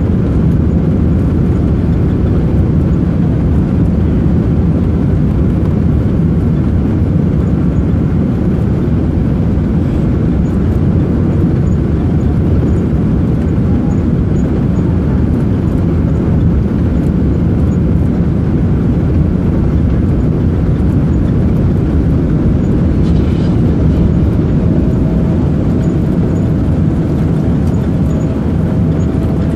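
Boeing 777-200 cabin noise on final approach, heard from a window seat over the wing: a steady low rumble of the engines and air rushing past the extended flaps. A faint steady whine joins in near the end.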